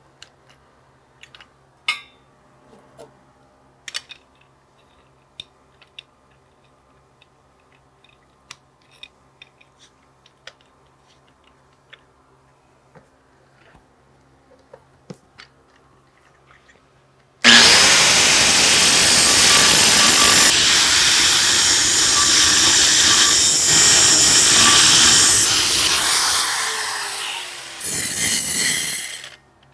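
Scattered light clicks and knocks, then an angle grinder starts abruptly a little past halfway and grinds steel loudly for about ten seconds, feathering down a tack weld on a steel pipe. It trails off, gives one short final burst, and stops just before the end.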